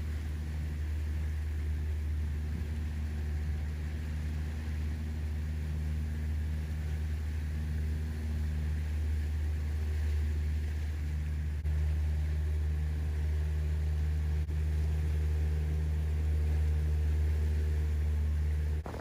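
A boat engine running steadily as a low drone, a little louder from about twelve seconds in.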